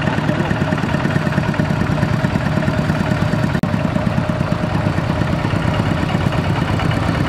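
Kubota RT120 walking tractor's single-cylinder diesel engine running steadily with a rapid, even putter while the machine is bogged in mud pulling a loaded trailer, with a split-second break about halfway through.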